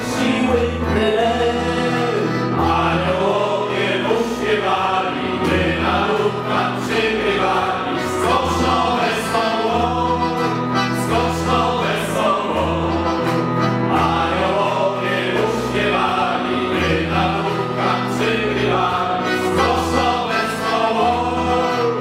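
A small group of men and a woman sing a Polish Christmas carol (kolęda) together, accompanied by accordion and electronic keyboard. A low bass line moves beneath them in held notes.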